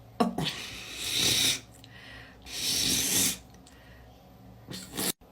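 A person sneezing and blowing air hard through the nose, set off by garlic up the nostrils. There is a sudden sharp sneeze, then two long noisy blasts of breath about a second and a half apart, and two short bursts near the end that cut off suddenly.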